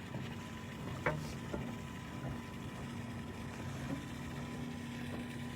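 Steady low hum from the fishing boat's motor, with one light knock about a second in.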